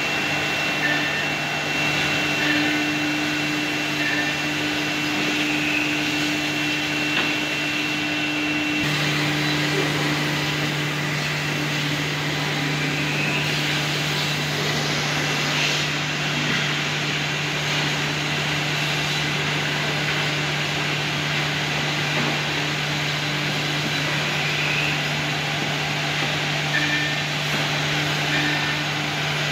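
Holztek CNC-2500B2 two-head horizontal boring machine running, a steady motor hum and whine with a hiss over it. Its tone shifts about nine seconds in.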